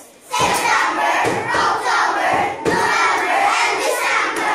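A class of children shouting together in unison, loud and excited, starting after a short pause and breaking briefly about halfway through.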